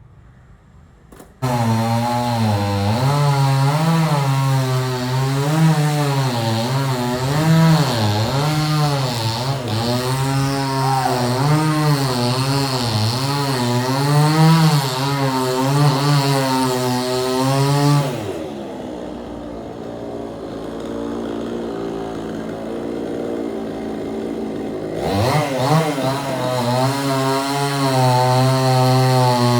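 Chainsaw running under load while cutting, its engine speed wavering up and down. It starts suddenly, drops to a lower idle about eighteen seconds in, then revs back up about seven seconds later and runs high and steady.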